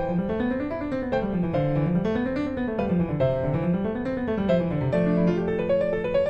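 Background piano music: rising and falling runs of notes repeating about once a second and a half, ending on a held chord.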